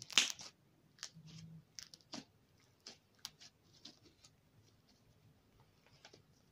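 Slime being worked by hand, giving irregular sticky clicks and pops, the loudest right at the start, growing sparse after a few seconds.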